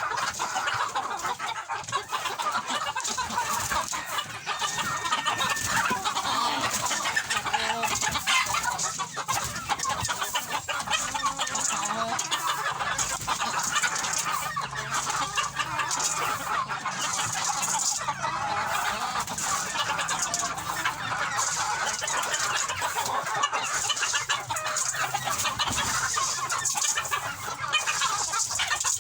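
Flock of domestic chickens clucking continuously, many birds calling over one another at a steady level.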